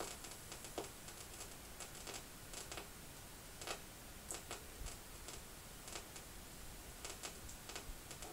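Quiet room tone with a low hiss and scattered, irregular faint clicks and ticks. No music or voice is heard.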